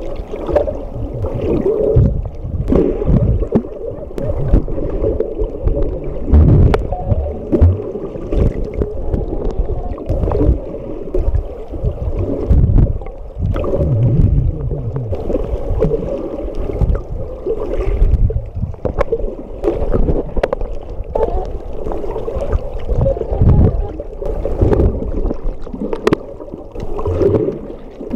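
Underwater sound from a submerged camera: a muffled, uneven low rumble and slosh of water moving around it, with occasional short clicks.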